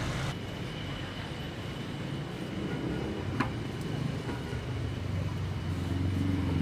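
Passenger jeepney's engine and road rumble heard from inside the cabin, with one sharp click a little past the middle.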